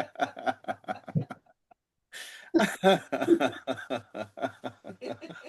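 A person laughing in quick, repeated pulses, with a short pause near the middle before the laughter starts up again.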